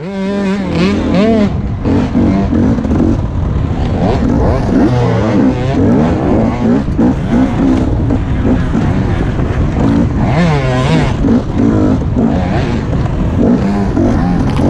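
KTM enduro dirt bike engine running hard, its pitch rising and falling over and over as the throttle is opened and closed on a rough trail, with wind and rattle noise on the bike-mounted camera.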